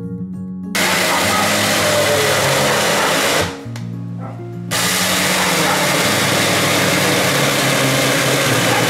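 Mag Cruise cordless mini handheld chainsaw cutting down into a 7.5 cm thick wooden desk top. The chain runs loud and even from about a second in, stops for about a second around the middle, then cuts again to the end, with background music underneath.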